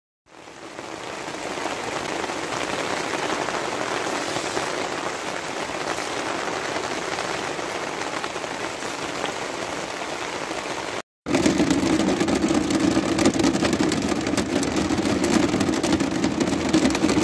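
Steady rain falling on a tarp awning and wet ground, fading in at the start. About eleven seconds in it breaks off for a moment, then louder, denser rain drumming on a hard surface takes over, with many fine drop ticks.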